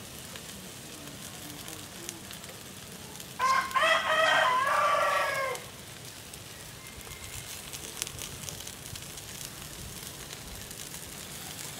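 A rooster crows once, a single call of about two seconds that falls away at the end, over the steady sizzle of meat grilling on a charcoal grill.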